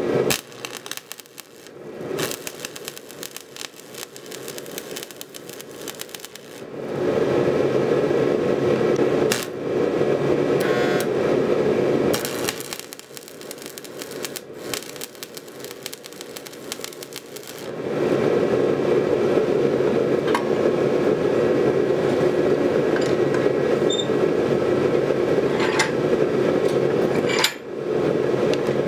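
Stick welder's arc crackling steadily as beads are run on the corners of a stacked steel billet to hold the layers tight for forge welding. It burns in two long runs, from about seven seconds in for some five seconds, then again from about eighteen seconds in, with quieter handling between.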